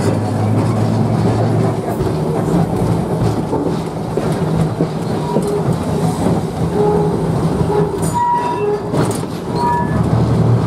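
1904 electric tramcar running along its rails, heard from aboard the open car: a steady low rumble of wheels and running gear, with a few short high wheel squeals about eight and ten seconds in.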